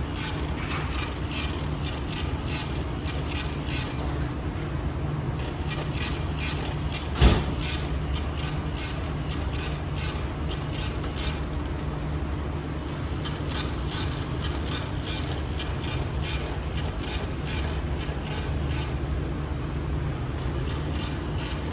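Engine-room machinery running steadily, with the ship's diesel generator now online, as a constant low hum overlaid by rapid, regular clicking. One sharp knock about seven seconds in.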